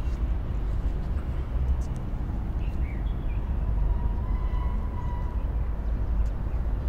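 Outdoor ambience: a steady low rumble with a few faint, short bird calls, and a faint held tone about two-thirds of the way through.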